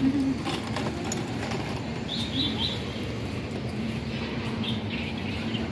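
Steady hum of road traffic along a city street, with a small bird chirping three quick notes about two seconds in and faintly again near the end.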